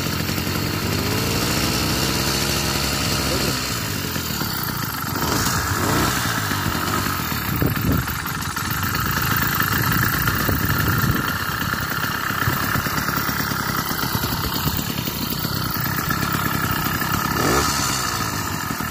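Small 80cc two-stroke bicycle engine running, its revs rising for a couple of seconds near the start as it is given throttle.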